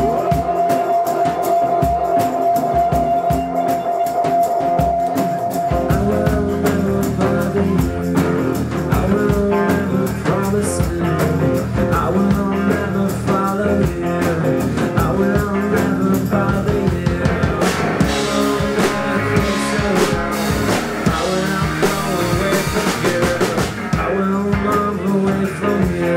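Live rock band playing an instrumental intro on electric guitars, bass guitar and drum kit. A single held note sounds alone at first, and the full band comes in about six seconds in.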